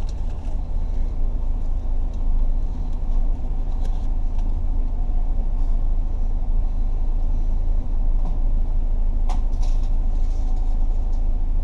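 Car engine running with a steady low rumble, heard from inside the car. A few short clicks about nine seconds in.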